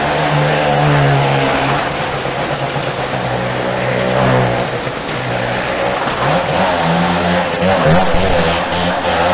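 A car engine revving hard as the car drives round the vertical wooden wall of a well-of-death pit, its pitch swinging up and down, with other engines running beneath it.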